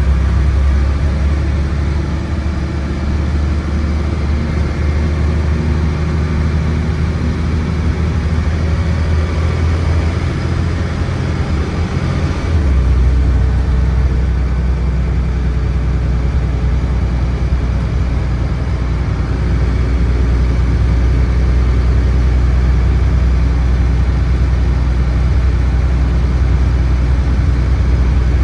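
Dennis Trident double-decker bus's diesel engine and Voith automatic gearbox running steadily under way, heard from inside the passenger saloon. The low engine note shifts abruptly a little under halfway through.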